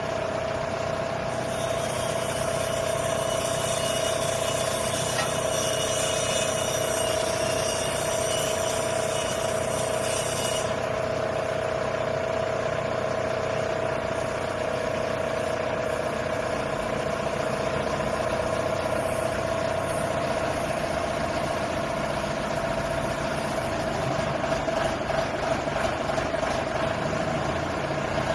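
Water well drilling rig's engine running steadily with a constant whine, joined by a high hiss for several seconds starting a second or two in.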